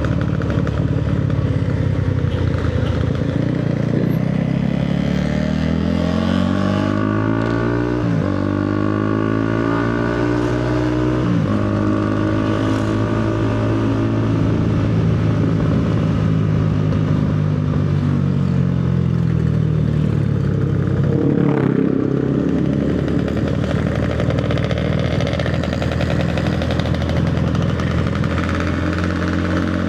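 Motorcycle engine under way, pulling up through the gears. The revs climb from about four seconds in, with gear changes near eight and eleven seconds, then hold steady. The revs ease off again later, with another shift a little past twenty seconds, and then steady running.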